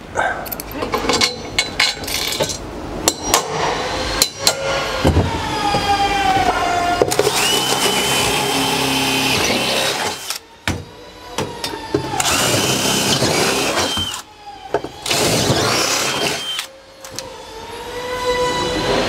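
DeWalt cordless drill/driver driving bolts down through a steel bed frame into a van floor, in several runs of a few seconds each with short pauses between. Its whine falls in pitch during the first run. A few clicks come before it.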